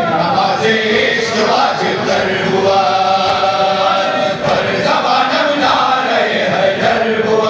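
A crowd of men chanting together in unison: a noha, a Shia mourning lament, sung by a mass of voices.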